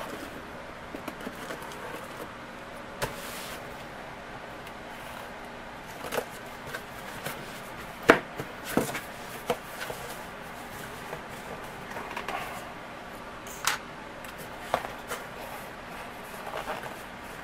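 Cardboard shipping case being opened by hand: scattered scrapes, taps and rustles of cardboard as it is slit and its flaps are pulled open, with the sharpest knock about eight seconds in.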